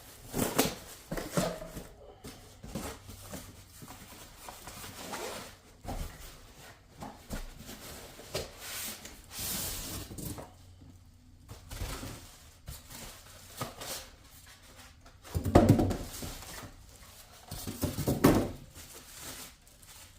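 Cardboard packaging being handled: rustling, scraping and knocking as boxes and packing are opened and moved, with two heavier thumps near the end as something is set down or bumped.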